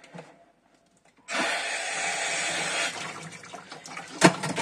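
A kitchen tap turned on about a second in, water running into the sink, strongest for about a second and a half and then running on more quietly. A sharp clank sounds near the end.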